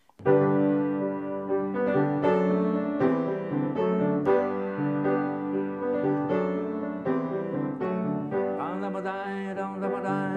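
Grand piano playing slow chords, struck about every second and left to ring. About eight seconds in, a higher, wavering sound joins the piano.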